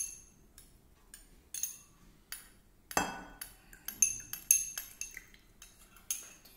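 Steel spoon clinking and scraping against a small glass bowl as lemon juice is tipped and scraped into a glass: a string of irregular sharp clinks, several with a short glassy ring.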